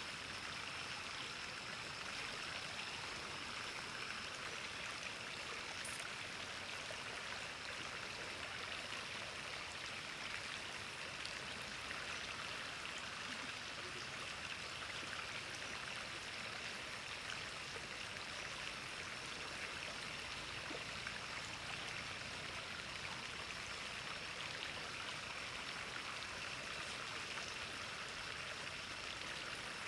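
Shallow river flowing over stones, a steady rush of water.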